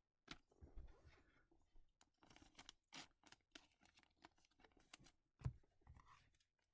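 Faint, scattered clicks and rustles of trading cards and their paper packaging being handled.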